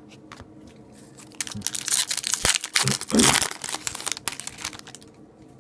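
Foil wrapper of a hockey card pack crinkling as it is opened. It starts about a second and a half in, is loudest around three seconds, and dies away near the end.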